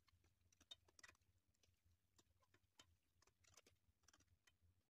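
Near silence, with faint, irregular crackles of sliced onions frying in hot oil in a kadhai.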